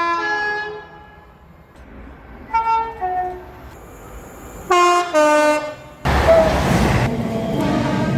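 Train two-tone horns sounding in a string of separate blasts: one fading at the start, then two high-then-low blasts a couple of seconds apart. About six seconds in, a train passes close with a loud rush as its horn sounds.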